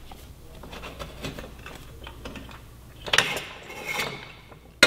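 Motorcycle rear axle being pushed out through the wheel hub and swingarm: light metallic clicks and scraping, busier about three seconds in, with a sharp metal click near the end.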